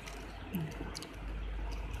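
Handling noise from a mobile phone and its cardboard box being picked up and moved by hand: a couple of light clicks about half a second and a second in, over a low steady hum.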